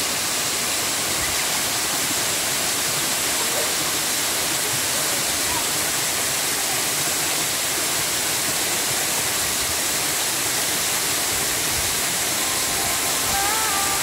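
Waterfall pouring onto rocks and a shallow pool: a steady, unbroken rush of water. A few held music notes come in near the end.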